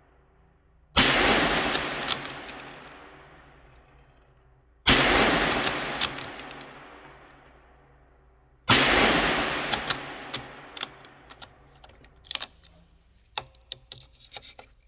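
Three shots from a Ruger Precision Rimfire bolt-action rifle, about four seconds apart, each echoing and dying away over a few seconds. After the third shot comes a run of sharp metallic clicks as the bolt is worked.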